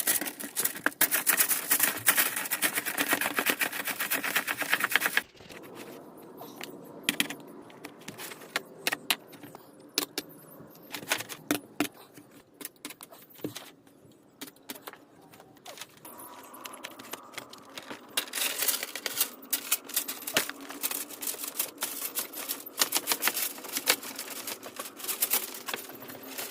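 Rapid clicking and rattling, dense for about the first five seconds, then scattered single clicks that grow busier again near the end.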